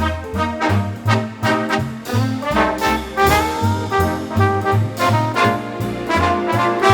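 Swing-style jazz with brass horns over a walking bass: a steady beat, with a horn phrase that slides up about three seconds in.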